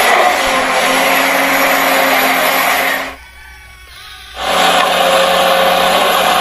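Electric motors and gearboxes of a radio-controlled excavator and truck whirring. The whirring stops about three seconds in and starts again just over a second later.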